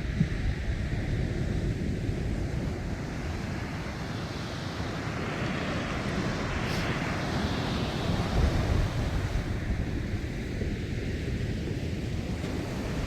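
Sea waves washing with wind buffeting the microphone, a steady rushing noise with a gusty low rumble; one wave swells and falls away about halfway through.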